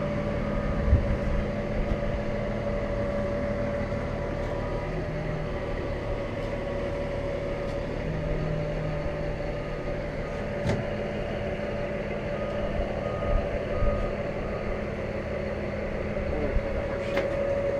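Lifting machinery running steadily under load, a constant engine drone with a steady whine, while a marine engine is hoisted out of a boat. A few light knocks come through.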